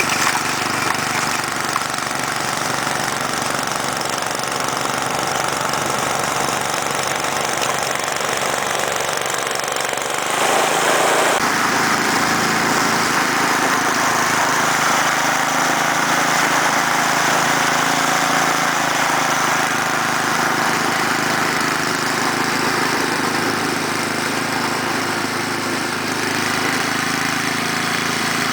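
Toro Powershift 1028 snowblower's 10 hp Tecumseh Snow King overhead-valve engine running steadily. About ten seconds in the sound steps up, a little louder and fuller, and stays that way.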